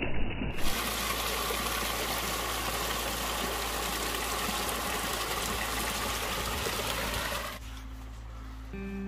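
Small mountain stream spilling and trickling over mossy boulders in a steady splashing rush, which cuts off about seven and a half seconds in.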